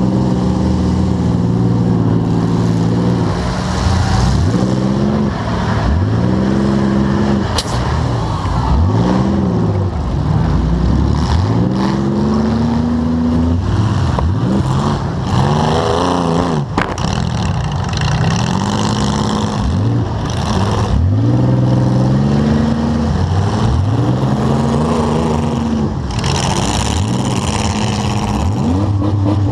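Demolition derby car's engine heard from on board, revved hard over and over, its pitch climbing and dropping every second or two as the car is driven back and forth. Two sharp bangs cut through, about a quarter of the way in and just past halfway.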